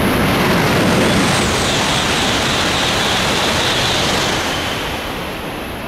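E5 series Shinkansen bullet train passing through the station at high speed without stopping: a loud rush of air and wheels with a steady hiss, tapering off near the end as the train goes by.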